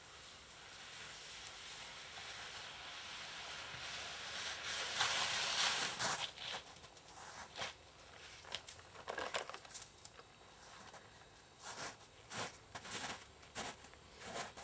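Footsteps crunching in snow, coming closer and louder over the second half, after a hiss that swells during the first few seconds.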